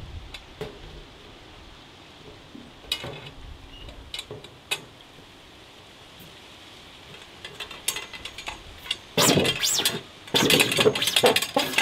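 Plastic compost-tumbler side panel being handled and slid down over a black pipe on a metal rod: a few light clicks and knocks, then louder scraping and rattling of plastic on plastic about nine seconds in, as the panel is pushed down into place.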